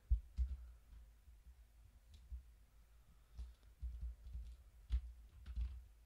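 Computer keyboard typing and clicking, a few irregular soft taps and clicks, each with a dull low thud.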